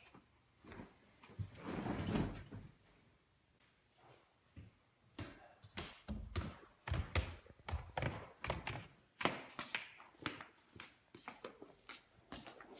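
Footsteps thudding on stairs and floor: a run of irregular knocks and thumps, several a second, starting about five seconds in.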